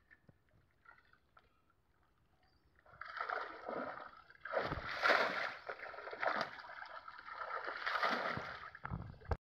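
Pond water splashing and sloshing as a cast net full of thrashing rohu is hauled up and dragged through the shallows. It starts about three seconds in after a near-quiet start, swells twice and cuts off just before the end.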